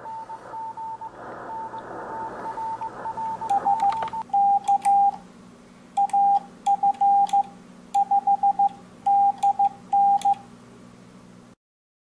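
Morse code tone: the quick, steady-pitched dits and dahs of an ARRL CW practice transmission, then a louder, slightly lower sidetone sent by hand on an MFJ-422D electronic keyer paddle, in short groups with light clicks of the paddle. The sending stops about a second and a half before the sound cuts off.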